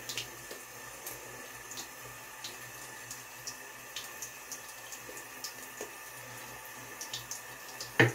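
Double-edge safety razor (Merkur 34C) scraping through lathered stubble in short scratchy strokes, several each second or two, over a steady background hiss. A single sharp knock comes near the end.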